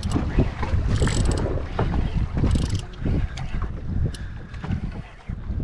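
Wind buffeting the microphone on an open boat at sea, with water moving alongside the hull. Short crackling clicks come through around a second in and twice more later.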